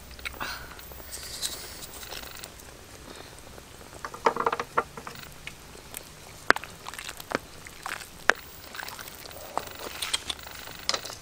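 Soup boiling in a wok over a wood fire: a steady bubbling hiss with scattered sharp pops and crackles, thicker for a moment about four seconds in.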